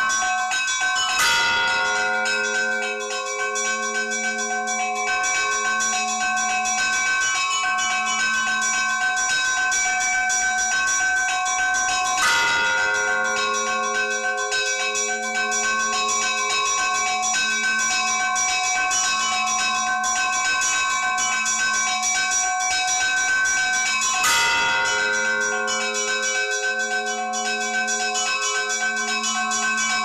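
Orthodox church bells ringing: small bells chime rapidly and without a break while a large bell is struck three times, about twelve seconds apart, each stroke ringing on and dying away, and a lower bell sounds steadily about every second and a half.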